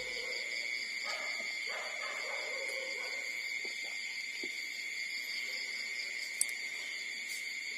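Newborn puppies giving soft, falling whimpers about one and two seconds in, over a steady high-pitched whine that runs throughout.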